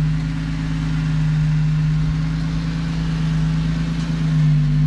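Jeep Wrangler's engine running steadily at low revs as it crawls up a rock ledge, the revs rising slightly near the end.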